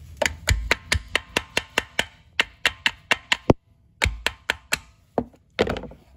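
Quick series of sharp taps on the oil filter cover of a Honda Rancher 420 engine, knocking the unbolted cover to work it loose: about four taps a second for some three seconds, a short pause, four more, then a couple of heavier knocks near the end.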